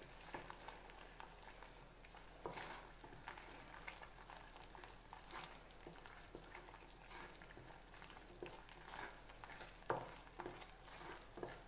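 Mysore pak mixture of gram flour, sugar syrup and ghee frying and bubbling in a steel kadai as a wooden spatula stirs and scrapes it. It makes a faint sizzle with scattered crackles and scrapes. The mixture has reached the stage where it is bubbling all around and is ready to pour.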